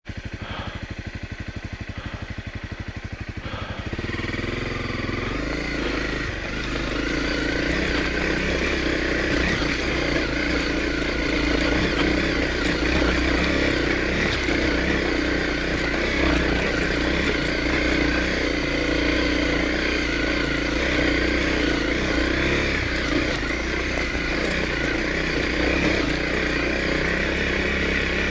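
Honda CRF250L's single-cylinder four-stroke engine running as the bike is ridden over a rocky dirt trail. Quieter for the first four seconds or so, then louder and steady under way.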